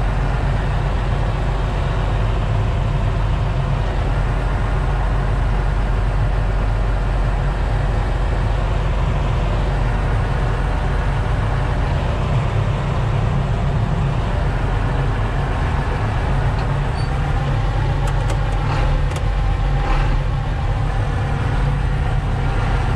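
John Deere 8520T tracked tractor's diesel engine running steadily, heard from inside the cab, with a deep even drone.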